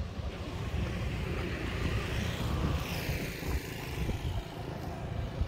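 Harbourside street ambience: a steady low rumble with a hiss that swells and fades about two to three seconds in.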